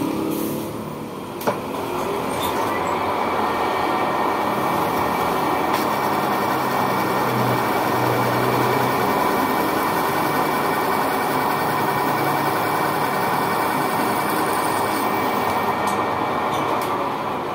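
Manual lathe running while a boring tool cuts the bore of a nylon bearing housing, peeling off a continuous curly chip. A sharp click comes about one and a half seconds in; the cutting noise then holds steady and eases off near the end.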